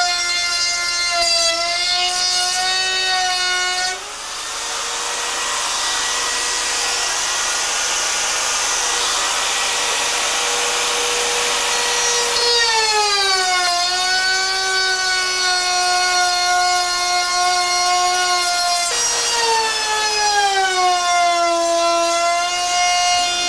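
Hand-held wood router running at high speed, cutting along the edge of a wooden boat hull. Its whine sags in pitch as the bit takes load. About four seconds in, a loud rushing cutting noise takes over for some eight seconds; then the whine returns and dips twice more.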